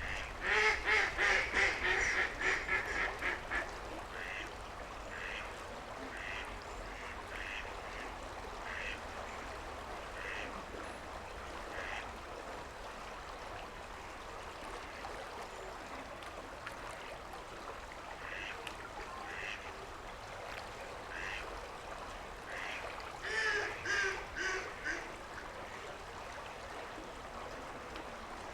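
Ducks quacking: a quick run of loud quacks at the start, scattered single quacks through the middle, and another quick run near the end, over a steady background hiss.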